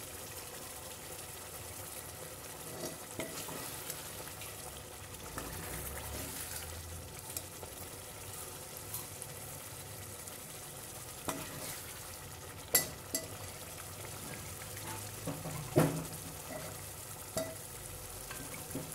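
Mutton curry masala sizzling in oil in a steel pot as a steel ladle stirs it, a steady hiss throughout. In the second half the ladle knocks and scrapes sharply against the pot a few times.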